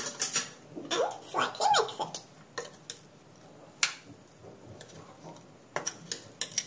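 Metal spatula scraping and knocking against a coated kadai while stirring a cooked vegetable dry fry, as a run of irregular sharp clicks and scrapes.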